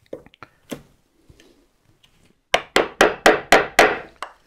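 Mallet blows on a wood chisel: a few light taps in the first second, then about halfway through a quick run of six or seven sharp strikes, about four a second, as waste wood is chopped out of a joint.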